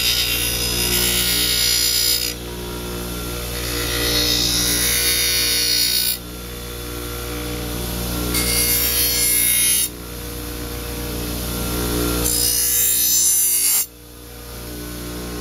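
Electric grinder running steadily, with a kitchen knife's steel pressed against it four times, each pass a hissing grind lasting one to two seconds: the spine is being ground down to reshape a broken tip.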